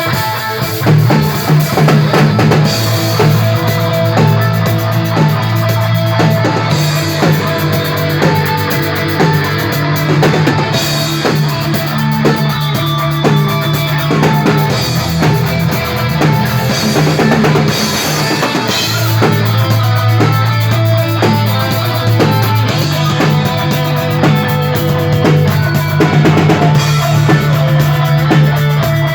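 Rock band playing an instrumental intro on drum kit, bass and guitar, with no vocals yet.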